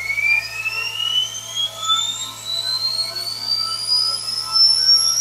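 Steam locomotive's cold water pump, the feed pump for the Worthington feedwater heater, running on compressed air instead of steam. It gives a high whine that rises steadily in pitch as it speeds up.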